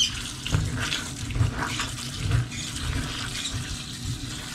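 Kitchen tap running onto soaked black beans in a plastic colander in a steel sink, with uneven splashing and small clicks as a hand stirs through the wet beans.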